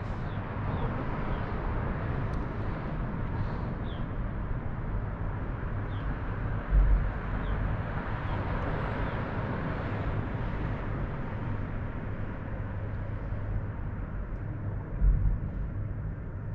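Steady outdoor background noise with a low rumble, broken by two brief low thumps, one a little before the middle and one near the end.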